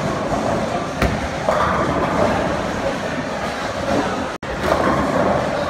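Bowling alley sound: a steady rolling rumble of a bowling ball on the wooden lane and the alley's machinery, with a sharp knock of the ball hitting the pins about a second in. The sound drops out for an instant a little past four seconds.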